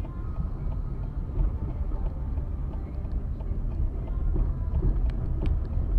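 Car driving along a city street, heard from inside the cabin: a steady low rumble of engine and road noise that grows a little louder as it goes.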